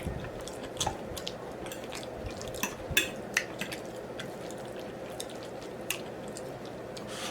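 Close-miked wet mouth sounds of a person eating: soft chewing with scattered, irregular smacks and clicks, over a faint steady hum.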